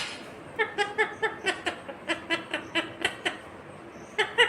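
Indian ringneck parakeet giving a rapid run of short, same-pitched notes, about four a second. A sharp click comes at the start, and a second quick burst of notes comes near the end.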